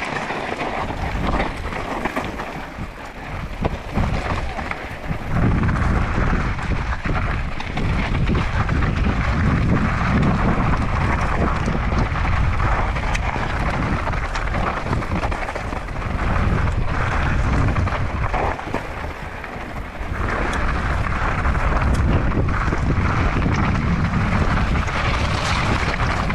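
Wind buffeting the microphone of a mountain bike on a fast descent, with tyres rumbling and crunching over loose rock and gravel and small rattles and clicks from the bike. The noise eases briefly about three-quarters through, then picks up again.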